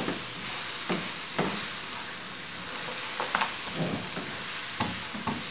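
Granola of oats and nuts sizzling in melted coconut oil and molasses in a frying pan, stirred with a silicone spatula. A steady sizzle runs under about half a dozen short scrapes as the spatula turns the mixture while it toasts over the flame.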